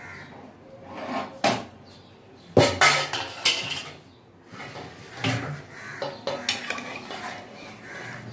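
Metal kitchenware clanking and scraping: an aluminium pressure cooker and its lid, a spoon in a stainless-steel bowl, and a steel ladle knocking inside the cooker. A series of sharp clanks, the loudest cluster coming a few seconds in.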